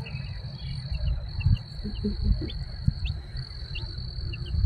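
Baby chicks peeping in short, scattered downward chirps, over a steady high-pitched tone and a low rumble.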